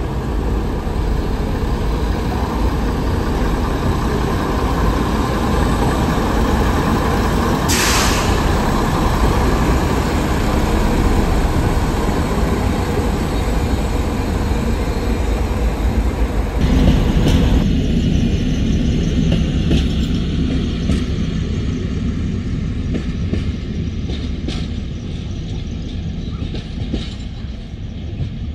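HŽ series 7122 (ex-Swedish Y1) diesel-hydraulic railcar running on the track, a steady loud train noise. About 17 seconds in the sound changes abruptly, and faint clicks run through the quieter second part.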